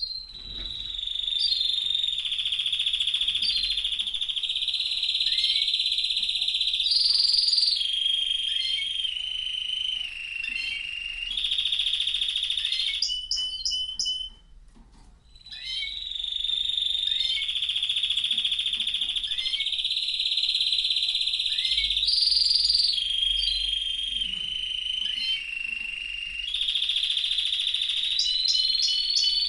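Domestic canary singing a long song of rapid trilled rolls, each held for a second or two before switching to the next. About halfway through the song stops briefly, then the same song starts over.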